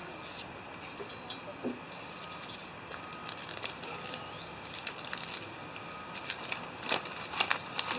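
A foil seasoning packet crinkling as it is handled and emptied into a steel canteen cup of hot water, with scattered sharp crackles that come more often in the last few seconds.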